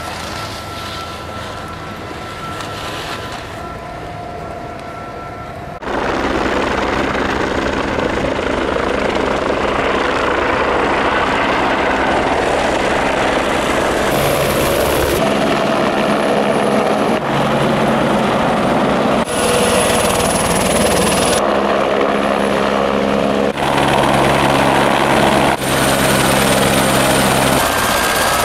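Helicopters running, a loud steady turbine whine and rotor noise, in a run of clips that change abruptly every few seconds. The first six seconds or so are quieter, with a couple of steady tones, before the sound suddenly gets much louder.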